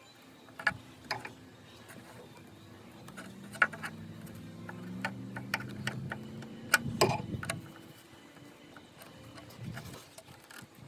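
Hands wrapping tape around exposed wiring: scattered small clicks and rustles of tape and plastic. A low hum swells midway and fades out.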